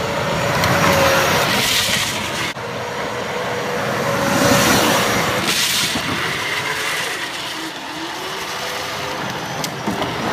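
Battery-powered ride-on toy Corvette driving over asphalt: its electric drive motors give a steady whine over the rumble and scrape of hard plastic wheels on the road, with short hissing surges as the wheels slide.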